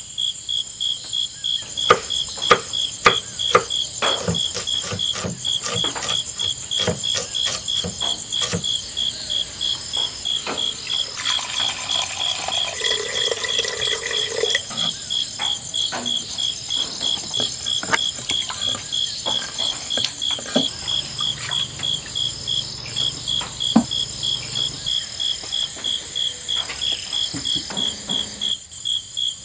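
Crickets chirping steadily in an even, pulsing rhythm, with scattered clicks and knocks of kitchen pots and utensils. About twelve seconds in, water pours into a clay pot of cooked rice for a few seconds.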